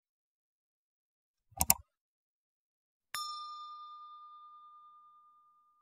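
Two quick sharp clicks, then a single bell-like ding that rings out and fades away over about three seconds.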